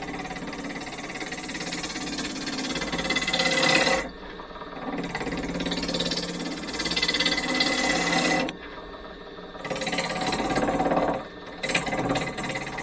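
A turning tool cutting a spinning cherry blank on a wood lathe, in several passes of a few seconds each with short pauses between, the cut rattling rhythmically while the blank is still out of round.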